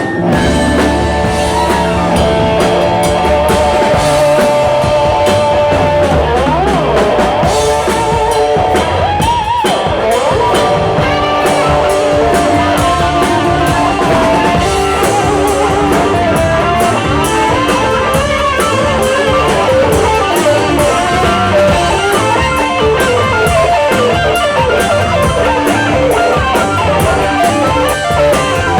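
Rock music with guitar and a drum kit, playing steadily.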